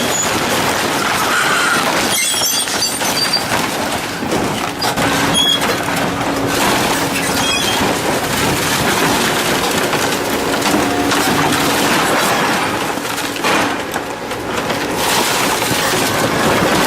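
Heavy scrap-processing machinery tearing and crushing aircraft scrap metal: a continuous loud grinding clatter of breaking metal with frequent sharp cracks and brief metallic squeals.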